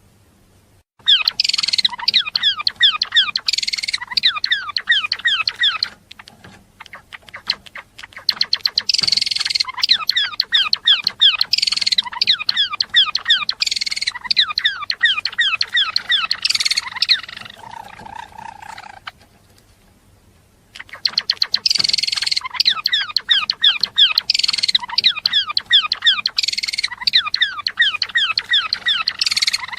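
Java sparrow singing: long runs of rapid clicking and quick down-slurred chirps, in three bouts broken by short pauses about six and nineteen seconds in.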